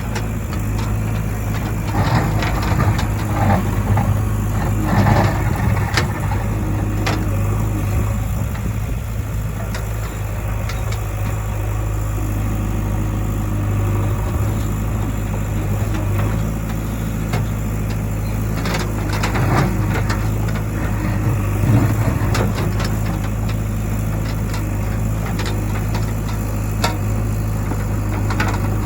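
Diesel engine of a JCB 3DX backhoe loader running steadily with a strong low hum while it works. Two stretches of clanking and knocking come a few seconds in and again about two-thirds of the way through.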